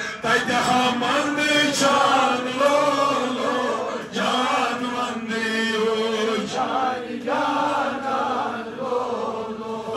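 A man's voice chanting a Kashmiri naat, a devotional poem in praise of the Prophet, in long, held melodic lines.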